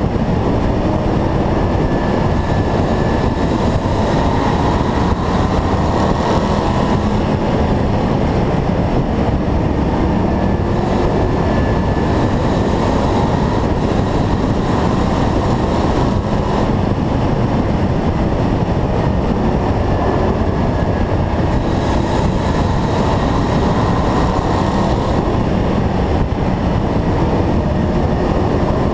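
Oval-track race car's engine running hard at racing speed, its note rising and falling every several seconds through the corners, heard from a hood-mounted camera along with the steady rush of wind and other cars' engines.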